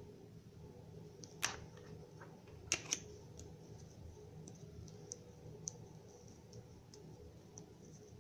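Small hard plastic pieces being handled. There is one sharp click about a second and a half in and a quick pair of clicks near three seconds, then a few faint scattered ticks over a low steady hum.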